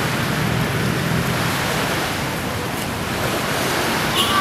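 Small sea waves washing onto a sandy beach, a steady rushing noise with some wind. A brief high-pitched chirp sounds near the end.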